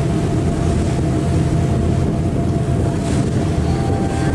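A passenger ferry's engines run steadily under way, a loud, even low drone, with wind rushing over the microphone.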